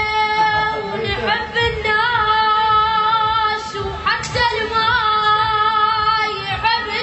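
A high voice singing long, wavering melismatic notes with vibrato, in the style of an Arabic mawwal, over a soft rhythmic accompaniment.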